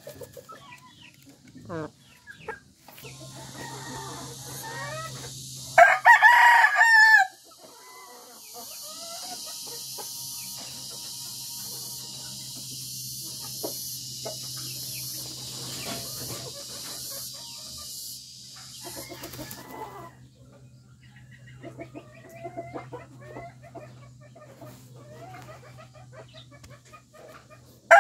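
A gamefowl rooster crows once, loud and about a second and a half long, around six seconds in. Softer clucks and short calls from other chickens follow through the rest, over a steady high hiss in the middle stretch and a low hum.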